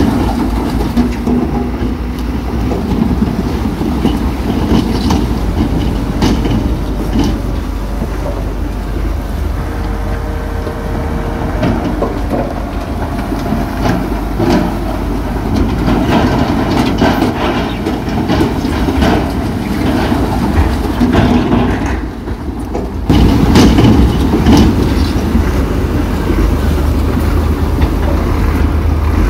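Bulldozer working: diesel engine rumbling under load while the steel tracks clank and rattle. The sound dips about 22 seconds in and comes back louder.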